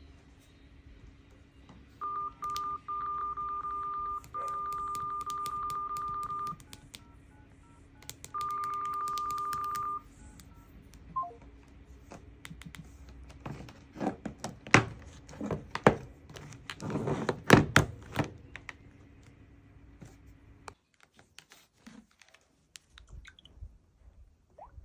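Telephone line tones: a steady beep held about four seconds with a few short breaks, then another lasting about a second and a half. These are followed by a run of sharp clicks and knocks, as of a phone being handled.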